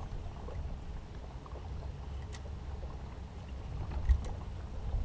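Low, uneven rumble of wind and water around a small fishing boat, with one short knock on the boat about four seconds in.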